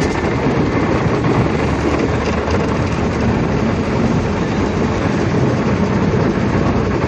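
Automatic car wash working on the car, heard from inside the cabin: a loud, steady rush of water and machinery.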